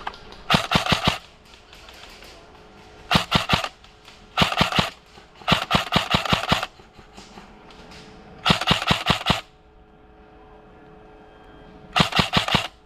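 Airsoft gun firing six short full-auto bursts, each a rapid string of sharp clicks lasting about half a second to a second.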